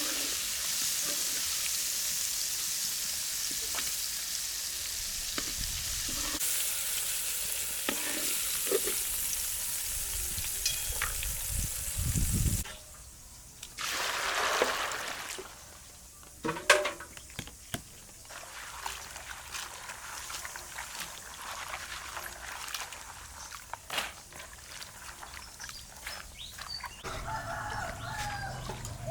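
Food sizzling in hot oil in a pan, a steady hiss that cuts off suddenly about twelve seconds in. Scattered clicks and knocks of cookware follow.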